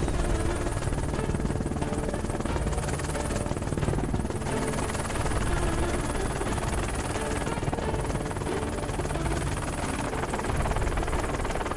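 Police helicopter's rotor and engine running, heard from inside the cabin with the door open as it comes down low over a stadium pitch: a steady, pulsing rotor noise with a thin high whine over it.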